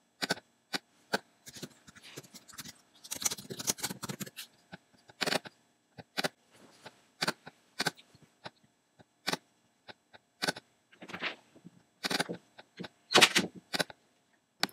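Computer keyboard keystrokes and mouse clicks: irregular sharp clicks, with a quicker run of keystrokes about three to four seconds in.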